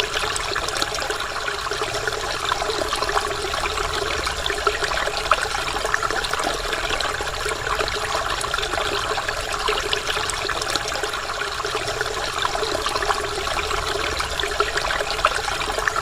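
Waterfall: water pouring and splashing steadily, a dense, even patter of droplets with no pauses.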